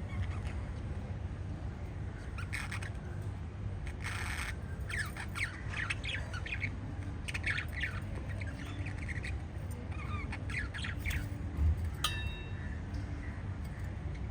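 Small pet parrots chirping and squawking in quick runs of short, scratchy calls, over a steady low hum. A single sharp click comes about twelve seconds in.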